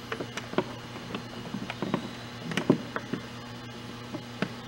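Fingers pressing and smoothing a vinyl decal onto a snowblower's plastic housing: small, irregular taps and clicks, several a second, over a steady low hum.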